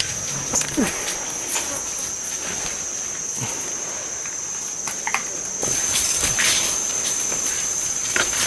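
Mountain gorilla eating bamboo, scattered crackles and snaps of the stems being broken and chewed, over a steady high buzz of insects that gets louder about six seconds in.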